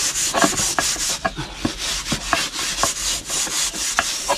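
A scouring pad scrubbing the soot-blackened outside of a metal pan with bar soap: quick back-and-forth scraping strokes, about three a second.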